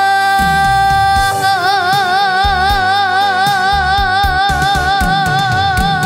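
A girl's voice holding a trot song's long closing note, steady for about a second and then with a wide, even vibrato, over a band with drum hits.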